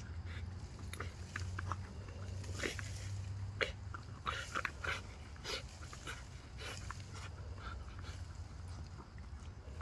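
Pit bull moving about: many scattered short clicks and taps over a steady low hum.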